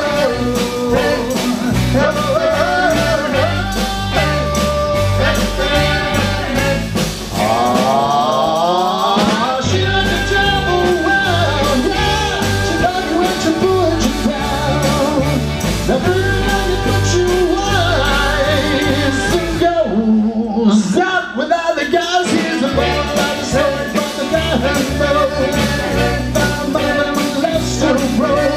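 Live rock and roll band playing an early-1960s doo-wop rock song: hollow-body electric guitar, upright bass and drum kit with a steady beat, with singing.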